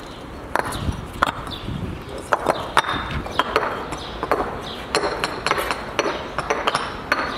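Hammering: sharp knocks come irregularly, about two or three a second, some with a short ringing clink.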